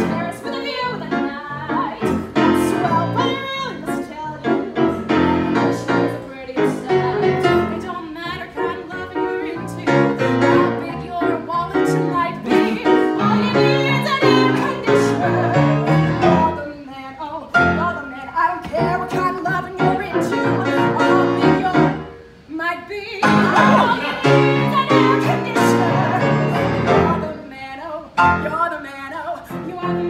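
A woman singing a cabaret song, accompanied live on a grand piano.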